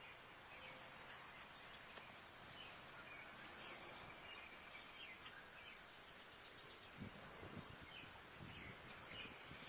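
Faint outdoor ambience with scattered distant bird chirps, and a few soft low thumps near the end.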